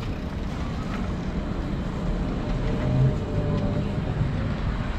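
Street ambience while walking: a steady low rumble of passing traffic mixed with wind on the microphone.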